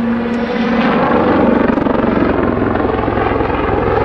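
Army Air Corps Westland Lynx helicopter manoeuvring overhead, its rotor beating in a fast, steady chop with turbine noise. A hum in it drops to a lower pitch after about a second.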